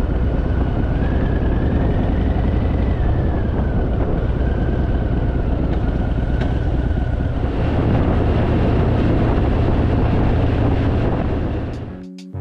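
Harley-Davidson V-twin engine running steadily while riding, with heavy wind rush on the microphone. It fades out near the end.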